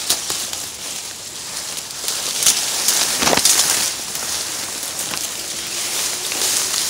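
Dry grass and reed stalks rustling and crackling as they are trampled underfoot and brush across the phone, with a few louder swishes.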